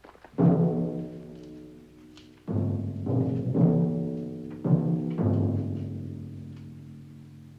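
Dramatic orchestral score with timpani: a run of loud chords struck one after another, each fading away, the last dying out slowly.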